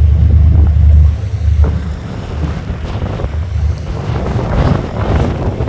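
Wind buffeting the microphone in loud low gusts, heaviest in about the first second, over the steady noise of a harbour tour boat moving on the water.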